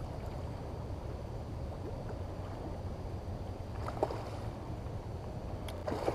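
A hooked salmon thrashing at the surface of the river, with short splashes about four seconds in and again near the end, over a steady low rush of moving water and wind.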